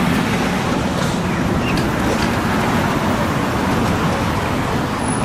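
Steady road traffic noise from cars passing on a busy street.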